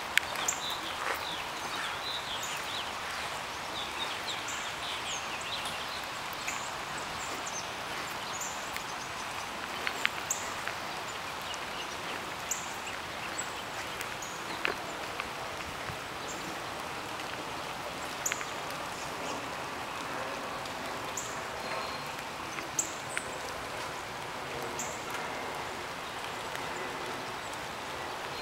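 Steady light rain falling on a yard, with scattered drops ticking, and a bird's short high chirps repeating every couple of seconds.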